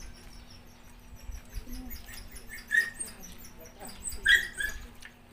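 Small birds chirping in the background, with two louder short squeaks about three and four seconds in.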